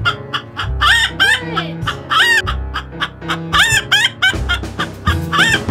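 Hen clucking and cackling in short arched calls that come about once a second, over music with a steady beat and bass line.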